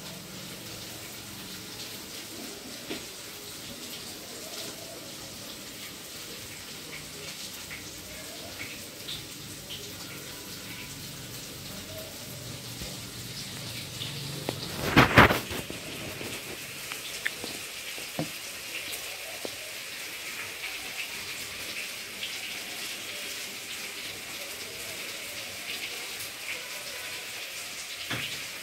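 Vegetables frying in a kadhai on a gas stove: a steady low sizzle. About halfway through there is one loud sudden burst, after which the sizzling turns brighter with light crackles.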